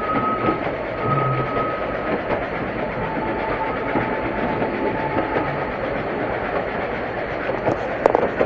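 Narrow-gauge passenger train running along the track, heard from inside an open carriage: a steady rumble and clatter of wheels on rail, with a thin squealing tone coming and going. A sharp clack near the end.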